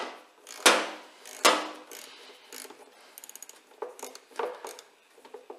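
Small ratchet with a 7mm socket clicking in short bouts as it turns a hose clip screw, with two sharp clacks in the first two seconds and a quick run of fine clicks a little past the middle.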